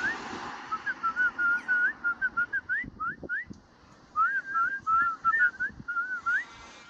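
Whistling: a run of short whistled notes, many of them quick upward slides, broken by a short pause about halfway through.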